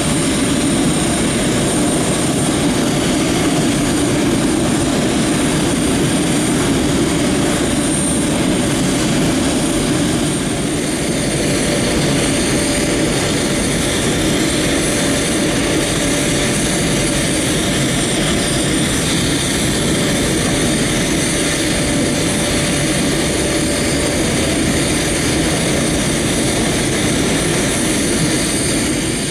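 Steady jet-turbine whine over a dense rumble from a parked Boeing 737-300 on the ramp, typical of its auxiliary power unit running while the main engines are off.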